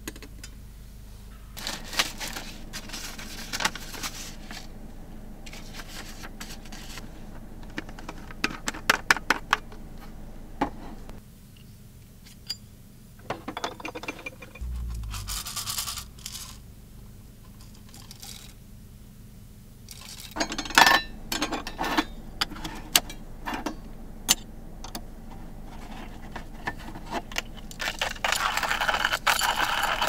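Coffee beans rattling and clicking in a small metal hand-roasting pan shaken over a camp gas stove, with more metallic clinks and a dull knock as the beans are handled in a metal cup. Near the end a steady crunching starts as a hand coffee grinder is turned.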